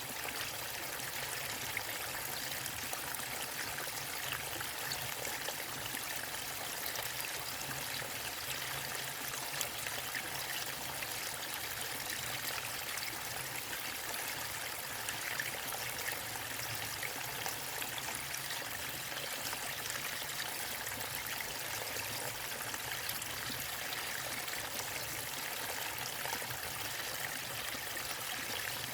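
Waterfall and river water running, a steady, unchanging flow with fine splashing and trickling.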